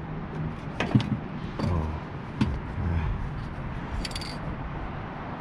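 A few knocks and clunks of handling, then a short hiss from an aerosol spray-paint can about four seconds in.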